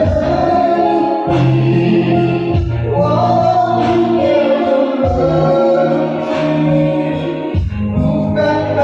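A group of voices singing a song together over steady musical backing, with held notes and a bass line that shifts every second or two.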